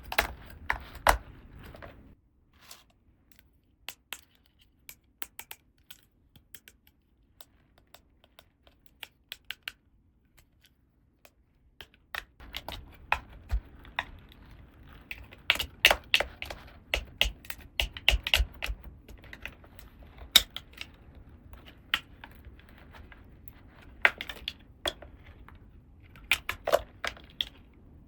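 Small plastic toy pieces being handled, making sharp clicks and taps. They are sparse at first, then come thick and fast from about twelve seconds in.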